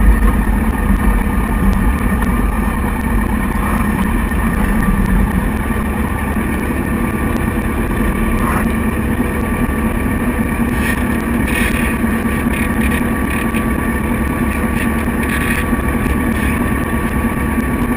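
Motorcycle engine running as the bike rolls to a stop, with wind rumble on the handlebar-mounted microphone. The rumble eases about five seconds in, and the engine then idles at a standstill.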